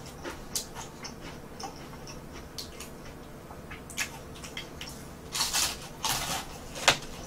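A person chewing and crunching toasted garlic bread, with soft irregular crackles and a few louder crunches about five to seven seconds in.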